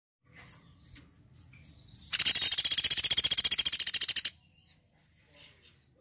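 A woodpecker's rapid, high-pitched rattling call, starting about two seconds in and lasting about two seconds.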